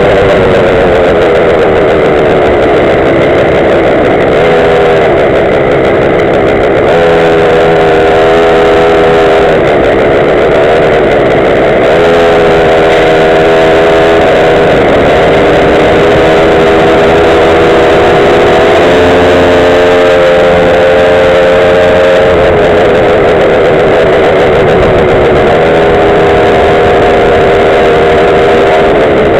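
A Goped gas scooter's small engine running while riding. It is loud and holds steady stretches, shifting up or down in pitch every few seconds as the throttle changes.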